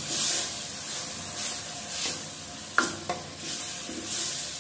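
Steel spoon stirring a thick, sizzling tomato-onion masala in a stainless steel pan, each stroke swelling the frying hiss. A little before the three-second mark the spoon clinks sharply against the pan twice.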